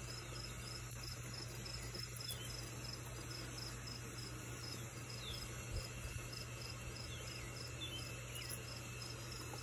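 Insects chirping steadily in an even, rapid pulse over a low steady hum, with a single soft knock a little past the middle.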